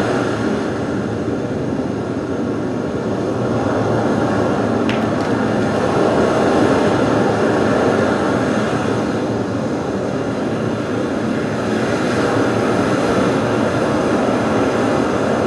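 A steady, dense noise drone, train-like or aircraft-like in character, played as the soundscape for a butoh dance piece.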